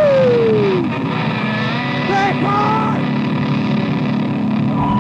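Lo-fi noise recording played from a cassette: a dense, harsh wash of noise with pitched tones sliding up and down, one falling tone in the first second, like engine revving.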